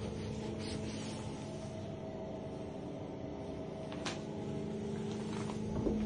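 A steady mechanical hum with a few brief clicks, the loudest about four seconds in and another just before the end.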